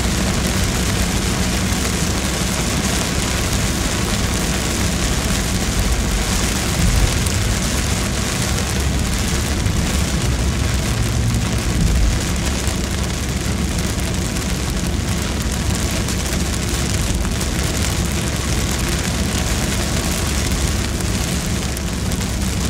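Heavy rain falling on a car's windshield and roof, heard from inside the moving car, over the steady low rumble of the car on the wet road.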